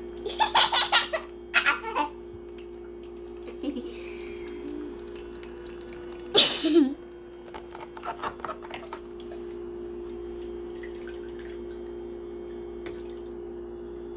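Toy kitchen sink play set running, its faucet pump giving a steady low hum while water trickles. Small stainless-steel toy pots and bowls clink and splash as they are washed, with bursts of clatter in the first two seconds and a louder one about six seconds in.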